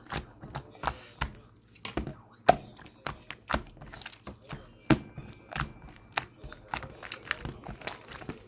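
Irregular close clicks, crinkly rustles and knocks, several a second, with two louder knocks about two and a half and five seconds in.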